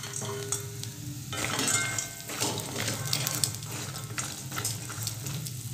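Dried ramda bori dumplings frying in a little oil in a steel wok with a light sizzle, stirred by a wooden spatula that scrapes across the pan in repeated strokes.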